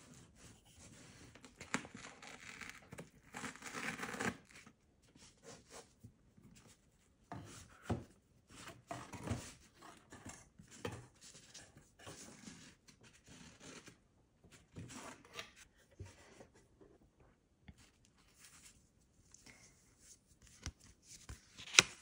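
Cardboard gift boxes and paper packaging being handled: irregular scraping, sliding and rustling of card and paper as a box is lifted out and its ribbon sleeve slid off. There is a sharp click near the end.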